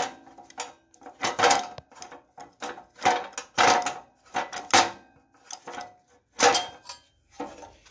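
Irregular metal clinks and rattles of a compression tester's gauge, hose and brass fittings being handled, in short knocks one or two a second.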